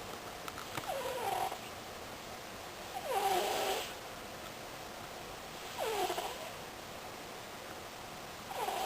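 A sleeping cat snoring: four snores about every three seconds, each a short pitched sound sliding down in pitch with some breathiness, a bit like a whoopee cushion.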